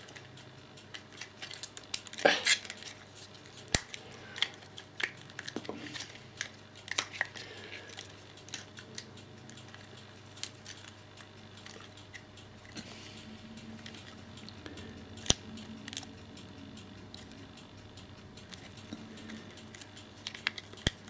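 Hard plastic clicking and handling rustle as a battery charger's clip-on plug adapter is worked in the hands, with scattered sharp clicks throughout and a louder burst about two seconds in.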